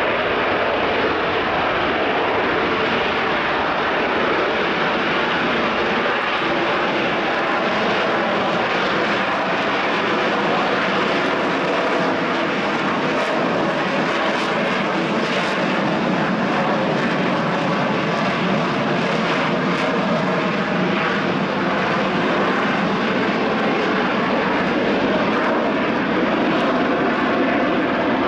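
Loud, steady jet roar from the Rolls-Royce Pegasus vectored-thrust turbofans of EAV-8B+ Harrier II jump jets in flight.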